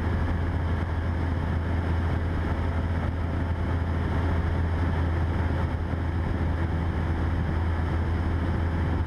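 Cessna 172's engine and propeller droning steadily in cruise, heard in the cockpit through the headset intercom.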